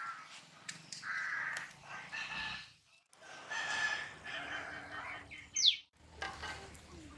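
Chickens calling, with a rooster crowing, in short stretches broken by brief gaps. A short, sharp rising squeak, the loudest sound, comes about two-thirds of the way through.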